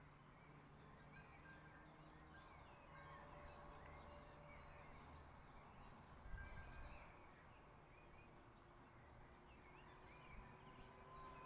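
Faint village ambience: small birds chirping here and there over a low steady hum, with a brief low rumble about six seconds in.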